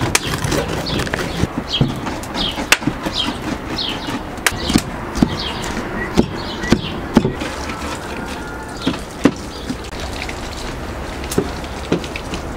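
Two large kitchen knives chopping onion and peppers on a wooden cutting board: irregular sharp knocks of the blades on the wood, several a few seconds apart.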